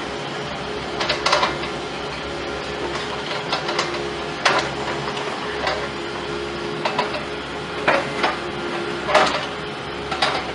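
Machinery running with a steady hum, broken by irregular sharp knocks and clanks about every second or two.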